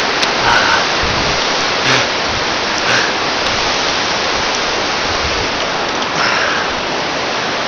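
Steady rushing wind noise on a handheld camera's microphone as a bungee jumper falls and swings on the cord, with a few brief louder swells.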